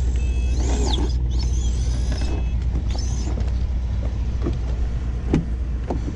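Pickup truck engine idling with a steady low rumble. High whines glide up and down during the first couple of seconds, and a few sharp clicks come near the end.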